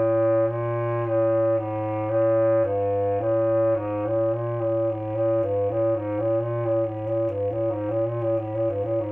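A clarinet playing a melody, with the lower keys fingered by a second player's hands. The notes are held longer at first and move faster from about four seconds in, over a steady low drone.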